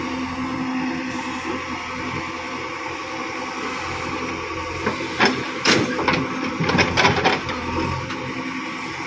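JCB 3DX backhoe loader's diesel engine running steadily under load. Past the middle comes a couple of seconds of loud knocks and clatter as the bucket unloads wet mud into a steel tractor trolley.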